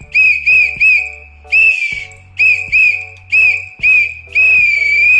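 Small plastic pea whistle with a ball inside, blown in about nine short high-pitched blasts; the last blast is held for most of a second with a wavering pitch. Really loud.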